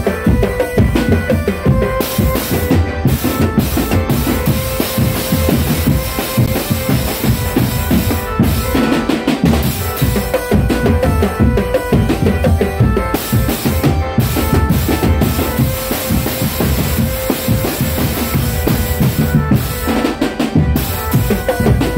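Indonesian drumband playing loud, fast percussion: bass drums, snare drums and rimshots in a continuous beat, with a melody line playing over it.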